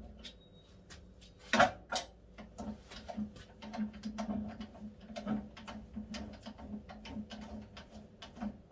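Irregular metallic clinks and knocks from hands working on a small metal lathe's chuck, with two louder knocks about a second and a half and two seconds in, over a low steady hum.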